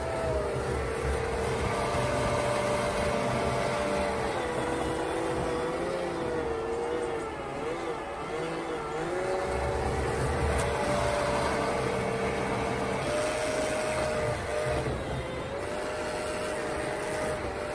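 RC snowblower's 3660 brushless motor whining as it drives the blower and throws snow. The pitch sags and wavers for a few seconds near the middle, then climbs back up.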